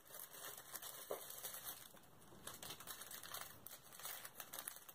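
Thin plastic wrapping around makeup brushes crinkling and rustling as the brushes are handled and unwrapped, with many small irregular crackles.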